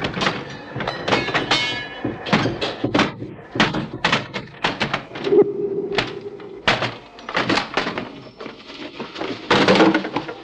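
A rapid, irregular series of knocks and thuds, with a short held tone about five seconds in and a louder cluster of knocks near the end.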